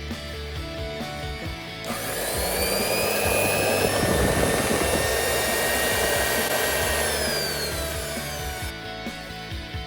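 Anysew handheld electric rotary cloth cutter's motor starts about two seconds in with a rising whine, runs steadily for several seconds, then winds down with a falling whine near the end. Background music plays throughout.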